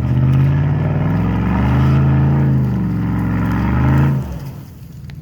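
Ford F-150 pickup engine revving as the truck works up a steep dirt hill, its pitch rising and then falling, then cutting off suddenly about four seconds in.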